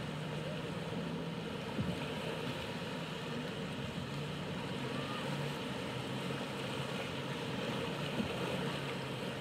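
Motorboat engine running at speed with a steady low drone, under the rush of spray and breaking waves as the hull crashes through rough inlet chop, and wind on the microphone. Two brief louder splashes stand out, about two seconds in and near the end.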